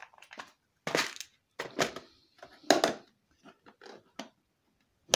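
Plastic fishing tackle boxes and a lure tray being handled and shifted: a series of sharp knocks and clatters, about four loud ones, with lighter rattles between.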